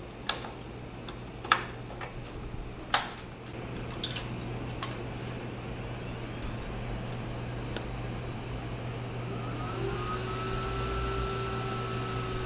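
Desktop PC memory module being pushed into its slot: several sharp plastic clicks of the RAM slot latches, the loudest about three seconds in. The computer is then powered on and its fans run steadily, with a held tone sounding for the last couple of seconds.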